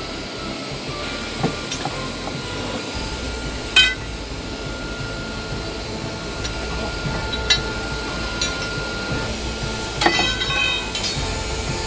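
Forge-shop machinery running steadily with a thin, high whine, broken by sharp metallic clinks that ring briefly as steel tongs and bars knock against the hot shackle blank and its steel tooling. The loudest clink comes about four seconds in, with a quick cluster of clinks near the end.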